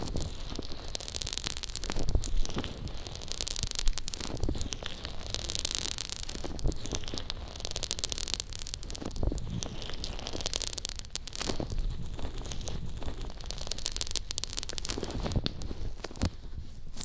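Fingertips rubbing and scratching the fluffy faux-fur cover on a binaural microphone's ear, heard right at the mic as a crackling rustle. It comes in repeated strokes that swell and fade about every second and a half, with scattered small clicks.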